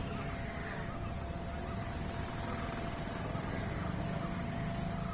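City street traffic: a steady rumble of engines and tyres from passing vehicles, with a faint constant tone running through it.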